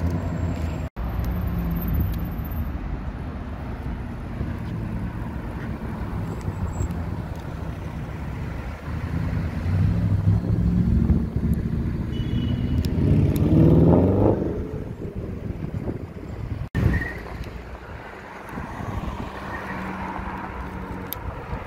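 Audi S8's twin-turbo V8 rumbling at low revs, then revved hard while pulling away about fourteen seconds in, its note rising sharply before falling off. The sound changes abruptly twice: a short burst of another car's engine at the very start, and a quieter BMW M3 engine pulling away near the end.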